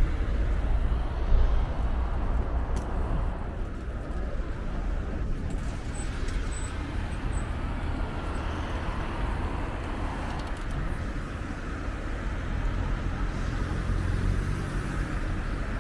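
City street ambience: a steady rumble of road traffic going by.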